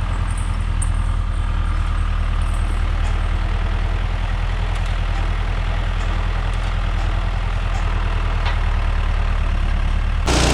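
John Deere 1640 tractor's diesel engine running steadily.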